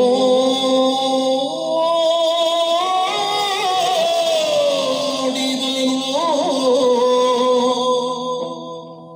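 Yakshagana bhagavata singing a verse: a male voice holding long, high notes with sliding, wavering ornaments over a steady drone. The voice fades near the end and breaks off.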